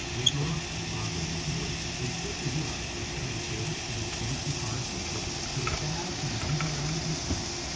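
A steady low engine hum, with a small click about a third of a second in.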